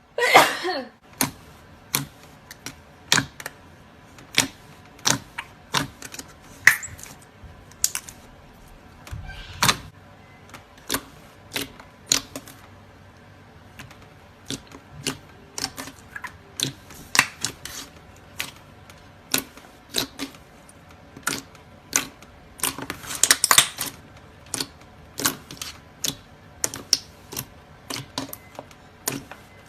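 Slime being pressed and poked, making a steady run of crisp clicks and pops about one a second, with a louder burst at the start and a denser crackling stretch about three quarters of the way in.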